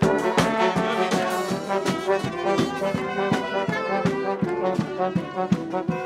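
Brass street band playing live: trombones, trumpet and sousaphone playing a rhythmic tune over marching drums.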